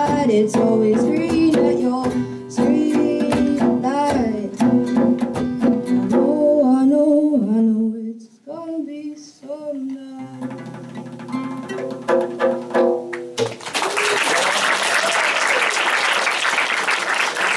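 A boy singing to a strummed nylon-string classical guitar with a hand drum struck by hand, then a few last guitar notes after a brief pause. The song ends and audience applause fills the last four seconds.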